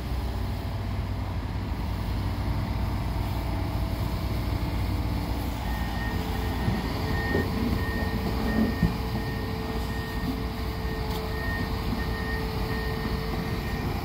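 Steady low rumble of heavy construction machinery running, with a vehicle's reversing alarm beeping at a regular pace from about six seconds in.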